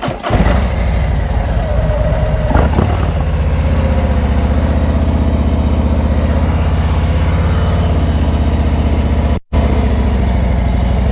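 Harley-Davidson touring motorcycle's V-twin engine catching and settling into a steady, loping idle. A single clunk comes about two and a half seconds in. The sound drops out for an instant about nine seconds in.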